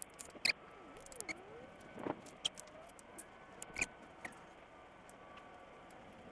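Trike basket and its fittings being handled while it is fitted to the bike: scattered sharp clicks and light clinks, most of them in the first four seconds.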